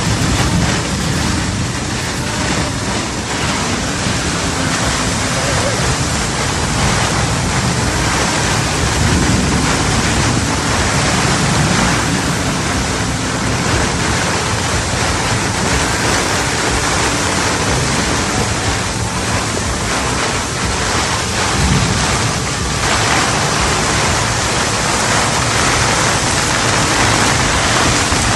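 Storm-force wind blowing across a sailing yacht, buffeting the microphone, with the wind-torn sea rushing around the boat: a loud, steady, unbroken roar of wind and water.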